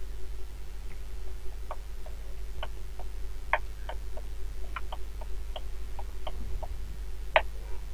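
Irregular clicks of a computer mouse and keyboard, about fifteen of them, the loudest near the end, over a steady low electrical hum.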